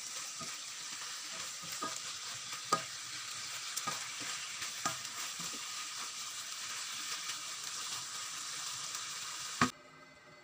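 Tofu, chicken liver and gizzard sizzling in a hot wok while a spatula stirs them, tapping and scraping the pan every second or so. Near the end there is one louder knock and the sizzling cuts off suddenly.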